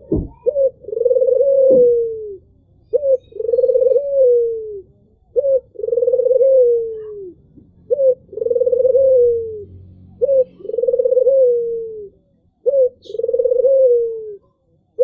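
Albino puter dove (white barbary dove) giving its rolling coo, about six times: each call is a short note followed by a long wavering coo that dips in pitch at the end. A brief low thump sounds right at the start.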